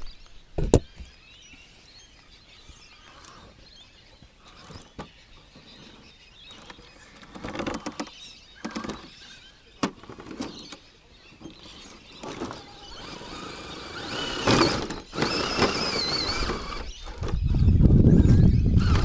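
Vaterra Ascender RC rock crawler's 35-turn brushed motor and drivetrain whining in short bursts as it climbs a rock face, the pitch wavering with the throttle, among scattered clicks and knocks of tyres and chassis on rock. The whining grows stronger in the second half, and a loud low rumble comes near the end.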